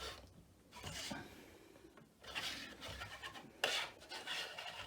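Plastic figure statues being handled and shifted on a surface, rubbing and scraping in three short bouts.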